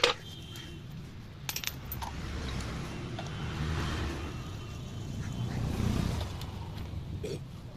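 A few sharp metallic clinks of tools and engine parts being handled, near the start and about one and a half seconds in, over a low background vehicle rumble that swells through the middle.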